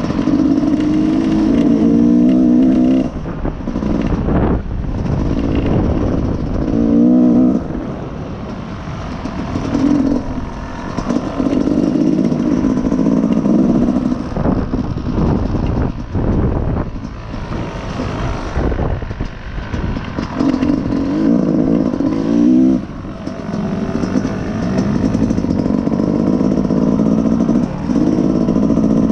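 Dirt bike engine running hard under the rider's throttle, its pitch repeatedly climbing and then dropping off as the throttle is opened and eased several times.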